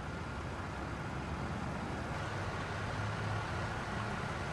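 Steady low rumble of motor vehicle engines running.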